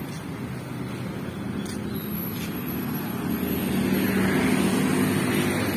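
City road traffic: cars and motorbikes running past, their engine noise steady at first and then swelling louder about halfway through as vehicles come by.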